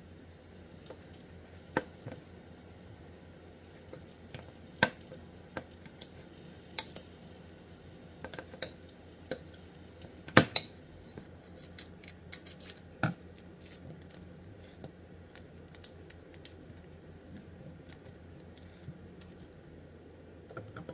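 Spoons knocking and clinking against a glass mixing bowl as seasoned rice is stirred: scattered sharp clicks, the loudest about ten seconds in, with a low steady hum underneath.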